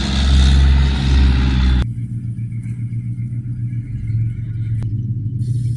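A car passing close on a snow-covered street, loud with a heavy low rumble, cutting off abruptly about two seconds in. A quieter steady low rumble follows, with a single click near the end.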